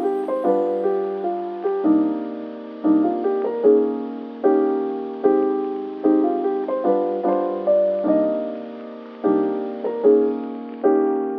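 Background music: soft electric piano chords struck at an even pace, each note fading before the next.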